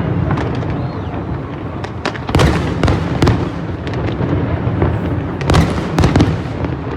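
Fireworks display: a continuous rumble of bursting shells with many sharp cracks and bangs, heaviest about two and a half seconds in and again near the end.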